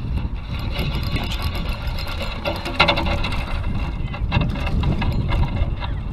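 Wind rumbling on the microphone over the fast clicking whir of a spinning reel being cranked to retrieve the line.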